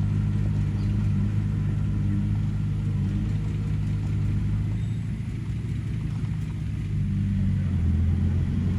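Heavy diesel engine of mud-recovery equipment running steadily, easing off about five seconds in and picking up again near the end.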